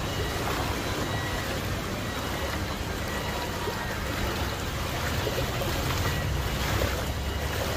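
Floodwater sloshing and churning around people wading through a flooded street, an even wash of water noise over a steady low rumble.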